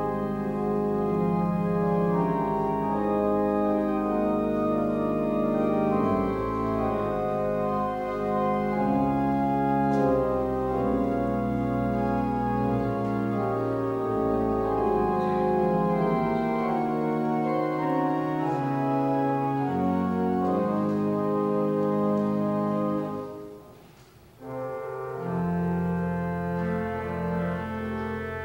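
Church pipe organ playing slow, sustained chords that change in steps; about 23 seconds in it stops for around a second, then comes back in.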